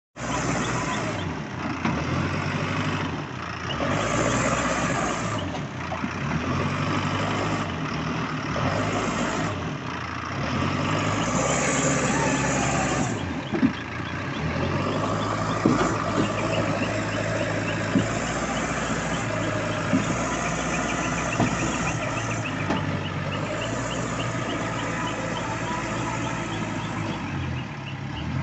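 Ace AX-124 backhoe loader's diesel engine running under work, its note rising and falling as the machine is worked, with a few sharp metallic knocks midway.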